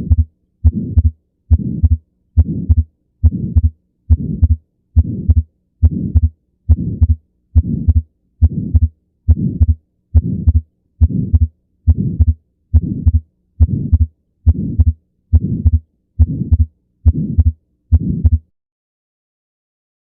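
Recorded human heart sounds: a steady heartbeat at about 70 beats a minute. The beats stop about 18 seconds in.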